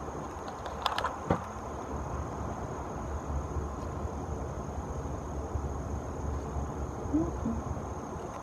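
A few light clicks and taps of a plastic bottle and masking tape being handled, about a second in, over a steady low hum and a faint steady high-pitched tone.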